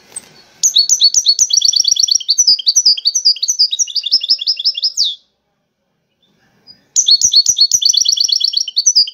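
European goldfinch (Moroccan wedani goldfinch) singing in its cage: a fast run of high, rapidly repeated twittering notes lasting about four and a half seconds, a pause of nearly two seconds, then a second run starting near the end.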